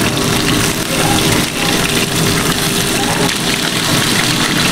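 Fish bones frying in oil in a wok over a gas burner: a steady, dense sizzle, with a low steady hum underneath.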